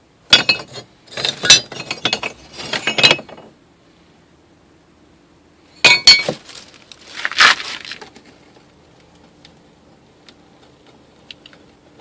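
Sticks of binchotan (Japanese white charcoal) knocked against each other in two runs of clinks, the second starting about six seconds in, each strike giving a bright, glass-like metallic ring. That clear metallic ring is what good binchotan should sound like.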